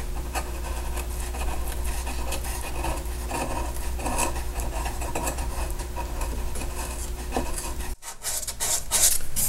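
A carving knife paring a spruce guitar neck at the peghead transition: light, intermittent scraping cuts as shavings come off the wood. The sound breaks off about eight seconds in and a few sharper scrapes follow.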